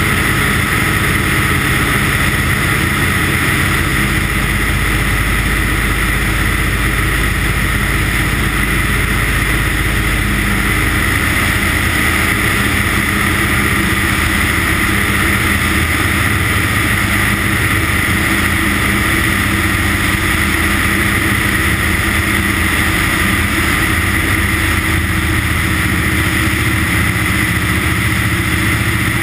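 Light ski-plane's engine and propeller running steadily, heard close up from a camera mounted on the aircraft. The drone holds an even pitch and level throughout.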